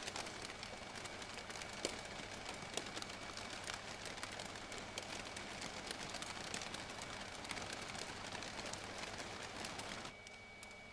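Plastic shopping bags of an inflatable sculpture crinkling and crackling, a dense, irregular stream of small snaps. The crackle drops away sharply about ten seconds in, leaving a faint steady hum.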